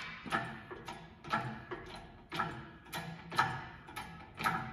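Pittsburgh hydraulic engine hoist being pumped by hand, its jack giving a sharp click or knock with each stroke, about two a second, as the boom lifts an engine block.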